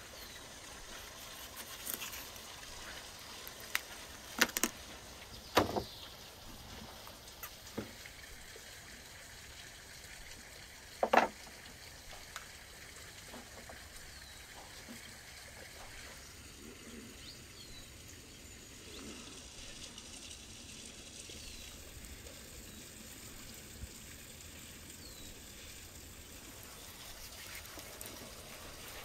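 Knife butchering a raw leg of lamb on a wooden cutting board: several sharp knocks of the blade against bone and board in the first twelve seconds, the loudest about eleven seconds in. After that only a faint steady outdoor background with a few short high chirps.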